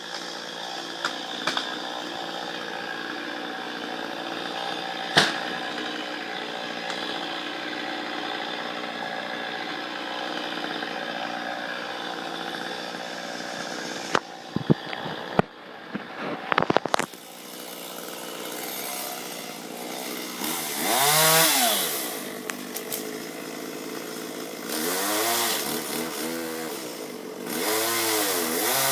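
Two-stroke chainsaw running at a steady idle, with a sharp knock about five seconds in and a cluster of knocks and clicks around the middle. Near the end it is revved up and back down three times.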